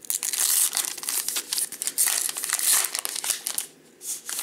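A Topps Gypsy Queen baseball card pack wrapper being torn open and pulled apart by hand. It crinkles and rustles densely for about three and a half seconds, then gives a few lighter crinkles near the end.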